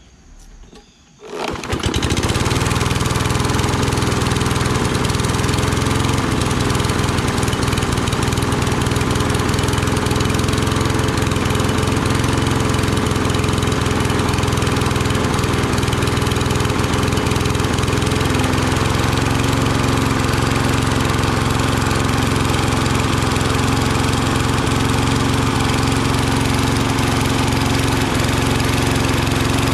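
Kohler XT675 single-cylinder engine on a Toro Recycler walk-behind mower starting up about a second and a half in, then running steadily at an even speed.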